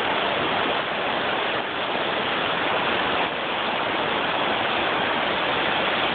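Shallow river flowing over rocks in a riffle: a steady, even rush of water.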